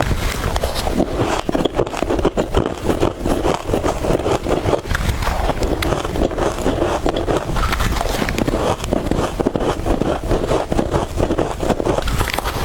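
Soft freezer frost being bitten and chewed close to the microphone: a dense, unbroken run of crisp crunching crackles.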